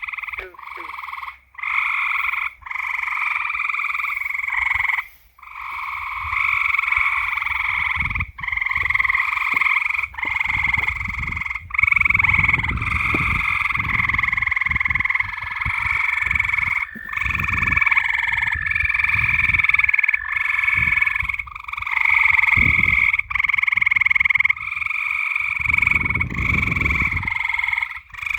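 A dense, continuous chorus of frogs calling at night, many voices overlapping into a steady high trilling drone. It is broken by several brief, sudden dropouts, with low rumbling coming and going through the second half.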